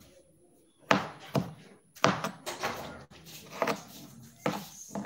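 Kitchen knife chopping tomato on a cutting board: a run of irregular sharp knocks starting about a second in, some in quick pairs.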